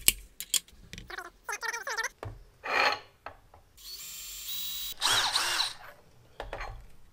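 Cordless drill boring a pilot hole into a metal dome end cap for a fuel tank's supply fitting. A few sharp clicks and scrapes as the part is set up come first. About four seconds in, the drill runs with a steady whine for about a second, then gives a louder, rougher burst as the bit cuts into the metal.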